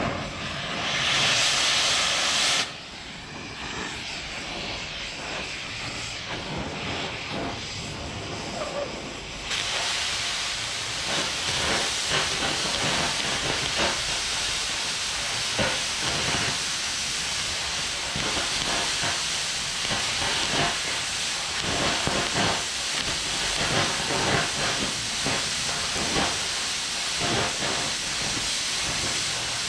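Oxy-fuel cutting torch hissing steadily as it cuts through the steel edge of a loader bucket, with crackling pops from the molten metal and sparks. The hiss is loud for the first couple of seconds, drops, then steps up about ten seconds in and holds.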